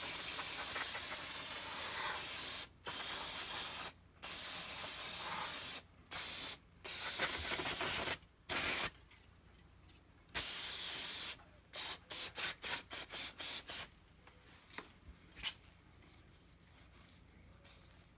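Aerosol brake cleaner sprayed onto a brake caliper: several long hissing sprays with short pauses between them, then about eight quick short squirts in a row near the end.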